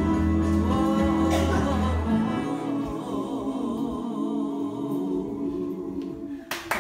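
Music with singing, long wavering held notes over the accompaniment. The bass drops out about two seconds in, and there is a short burst of noise near the end.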